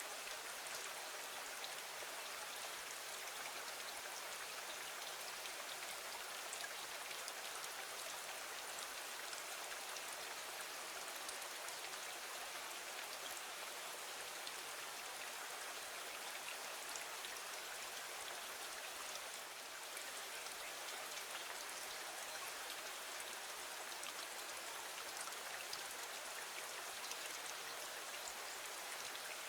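Steady rain falling against a window: an even hiss with scattered single drop ticks, easing slightly for a moment about two-thirds of the way through.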